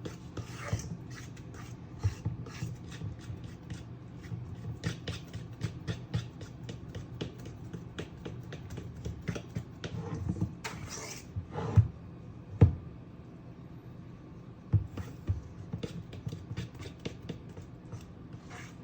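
Pancake batter being stirred in a bowl with a utensil, with quick, even strokes at about three a second, and two sharper knocks against the bowl about twelve and thirteen seconds in. A steady low hum runs underneath.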